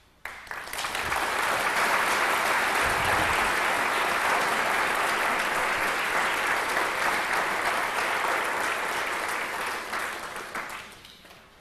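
Audience applauding: the clapping swells up within the first second, holds steady, then dies away about ten seconds in.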